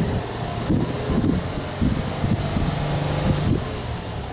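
Subaru Impreza S-GT's turbocharged flat-four (boxer) engine running, heard from the exhaust tailpipe. Its level rises and falls unevenly, with wind buffeting the microphone.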